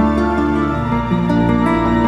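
Instrumental background music with sustained notes; the chord and bass change about a second in.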